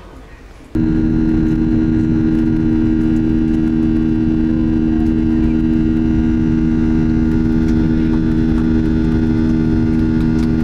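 Jet airliner's engines at takeoff power heard from inside the passenger cabin as the plane climbs out: a loud, steady drone with a strong low hum over rushing noise. It starts abruptly just under a second in.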